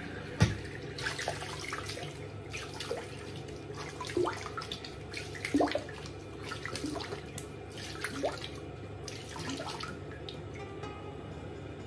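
Bathroom sink tap running while water is splashed onto a face with cupped hands, giving irregular splashes over the steady stream. A single sharp knock comes just after the start.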